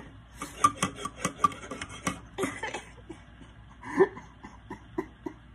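A man making a rapid string of short, breathy vocal sounds with his hands over his face, with one louder voiced sound about four seconds in and a few spaced short breaths after it.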